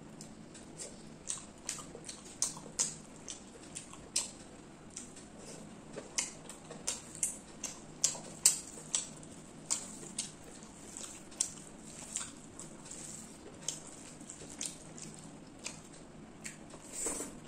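Close-up wet eating sounds of chewing rice and chicken curry eaten by hand: irregular sharp smacks and clicks of the mouth, about two a second, with a longer, louder wet smack near the end.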